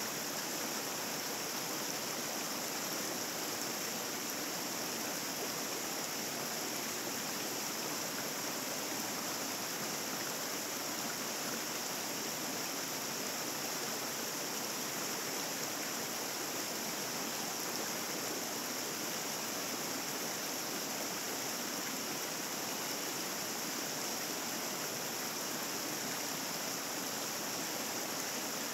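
Small rocky mountain stream running steadily over rocks and little cascades, an even rushing of water with no change.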